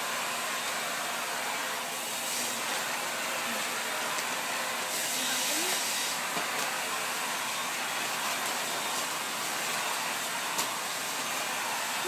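Stick vacuum cleaner running steadily, a continuous whooshing hiss, with its suction nozzle being moved over a cat's fur.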